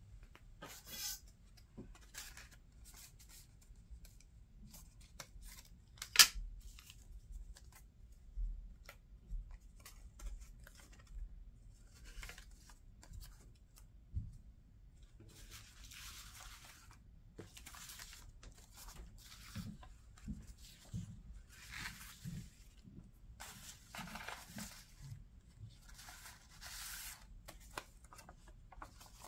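Paper ephemera being handled on a tabletop: crisp rustles and taps as scraps and tags are picked up and laid down, with one sharp tap about six seconds in and a series of rough paper swishes, each about a second long, through the second half.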